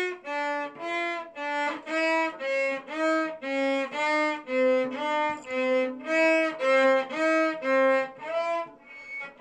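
Cello bowed back and forth between two alternating notes, about two notes a second, imitating a two-tone fire engine siren.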